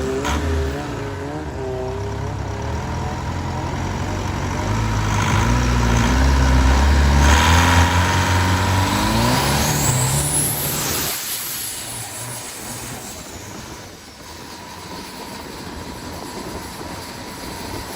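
Longtail racing boat's car engine revving up and growing louder to a peak about eight seconds in, with a high whine rising over it, then dropping away and running quieter.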